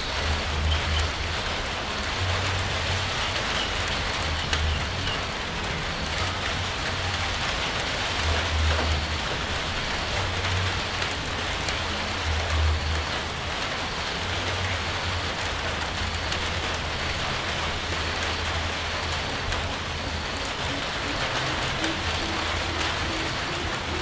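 Steady rain falling, an even hiss of drops, with low rumbles that swell and fade every few seconds.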